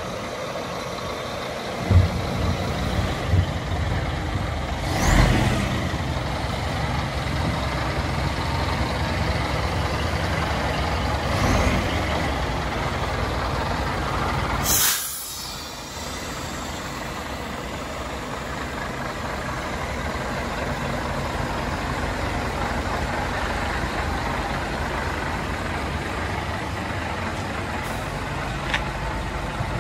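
Scania T124 truck's inline-six diesel engine idling, with a few clunks in the first seconds and short hisses of released air, the loudest about halfway through, cutting off sharply.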